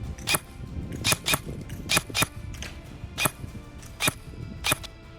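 ASG Scorpion Evo airsoft electric gun firing single shots, about eight sharp cracks at an uneven pace, some in quick pairs, stopping shortly before the end.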